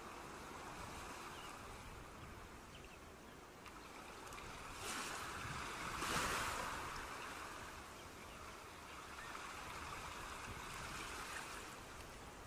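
Ocean surf washing on the beach, a steady rush of waves, with one wave breaking louder about five to seven seconds in.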